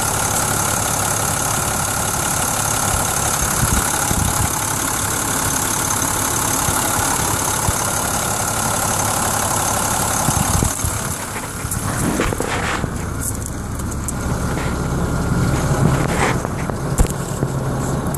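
International DT466E inline-six turbo diesel running at a steady idle. About ten seconds in its high hiss falls away, leaving a lower hum heard from beneath the truck, with a sharp click near the end.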